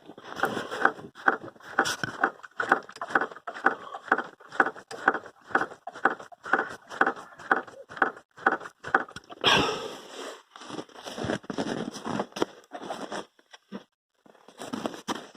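Right engine mount of a Lada Vesta knocking each time the engine is rocked, a regular knock about two to three times a second, with one heavier clunk about nine and a half seconds in. The knock comes from a faulty mount.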